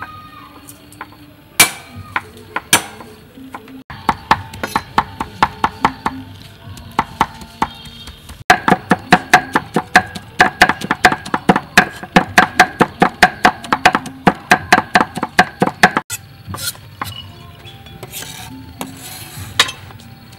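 Cleaver chopping garlic cloves on a thick wooden chopping board. A few separate knocks come first, then steady, fast mincing strokes, about five a second in the middle stretch, and only scattered strokes near the end.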